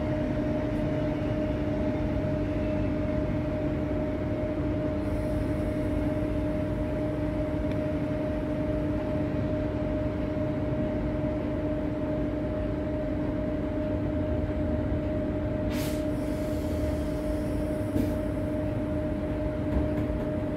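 Interior of an EMU electric suburban train carriage in motion: a steady running rumble with a constant two-note electrical hum. Near the end there are two brief sharp clicks, about two seconds apart.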